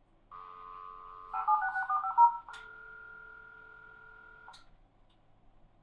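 Dial-up modem starting a 9600 bps V.32 call over a telephone line simulator. First comes about a second of steady dial tone, then a quick, loud run of DTMF touch-tone digits, then about two seconds of a steady tone on the line, with a click at its start and end.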